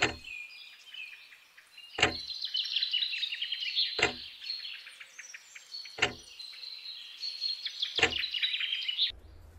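Birds chirping steadily, cut every two seconds by a sharp, heavy knock like an exaggerated clock tick, five in all. The birdsong cuts off suddenly near the end.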